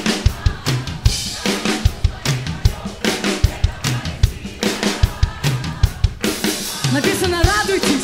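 Live band playing an upbeat instrumental passage, driven by a drum kit with steady kick and snare hits under electric guitar and bass. A wavering lead melody line comes in near the end.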